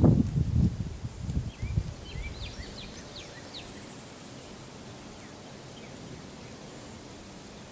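Low rumbling noise in the first two seconds, then a small bird's quick chirps about two to four seconds in, over a steady faint outdoor hiss with insects.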